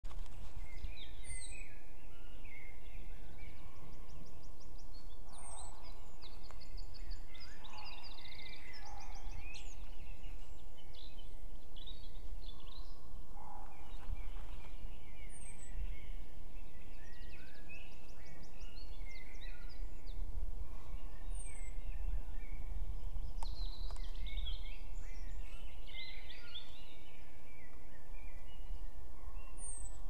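Several small forest songbirds singing at once: overlapping chirps, trills and short phrases throughout. Under them runs a steady low rumble.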